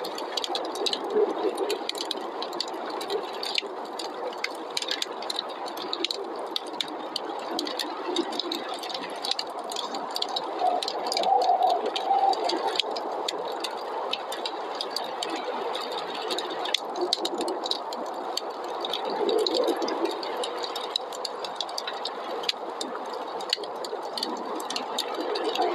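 Wood fire crackling in a fireplace, with a dense scatter of small pops and snaps, over a steady rushing noise of snowstorm wind. The rush swells slightly around ten seconds in and again near twenty seconds.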